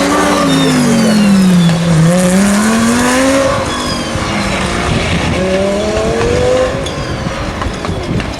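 GT race car engine at high revs. The pitch falls for about two seconds, then climbs under acceleration, drops back briefly about three and a half seconds in and climbs again, then eases off near the end.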